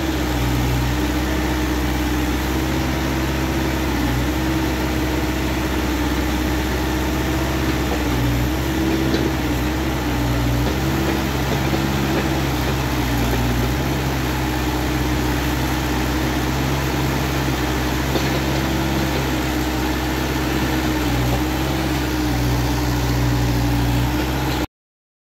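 Kubota U50 mini excavator's diesel engine running steadily while the boom and bucket are worked, its pitch dipping briefly now and then. The sound cuts off suddenly near the end.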